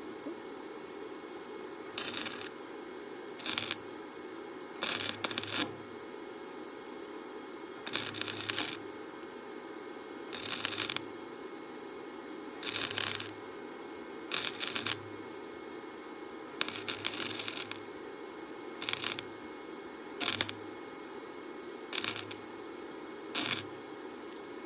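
Wire-feed welder laying short stitch welds: about a dozen crackling arc bursts, each under a second, spaced a second or two apart, over a steady background hum.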